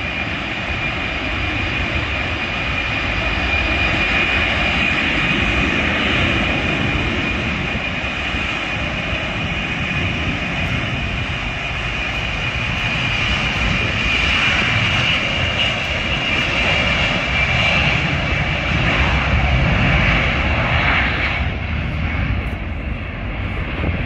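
Y-20 transport aircraft's four turbofan engines running at takeoff power during its takeoff roll: a loud, steady jet roar with a strong high whine. The roar swells and eases as the aircraft moves along the runway, and the hiss on top thins near the end as it draws away.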